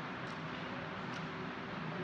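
Close-miked chewing of boiled pig-cheek meat, with a couple of faint wet mouth clicks over a steady hiss.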